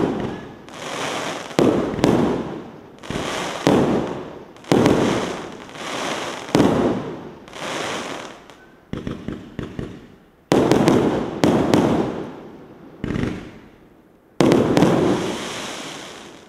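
A 25-shot 1.2-inch consumer fireworks cake firing. A sharp bang comes every second or so as each shell breaks, and each bang is followed by a fading crackling hiss of burning stars. About nine seconds in there is a run of quick small pops.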